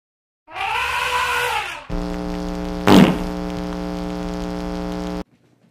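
Electronic intro stinger: a pitched sound that rises and falls for about a second, then a steady buzzing tone with one loud sharp hit near its start, cutting off suddenly.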